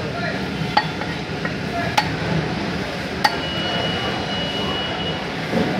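Three sharp chops of a heavy cleaver cutting through catfish pieces into a wooden log chopping block, about a second apart, over steady background noise.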